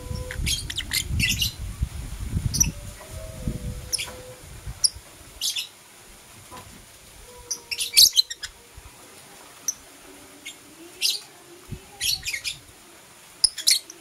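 Lovebirds chirping: short, sharp high chirps at irregular intervals, some in quick clusters. A low rumble underlies the first few seconds.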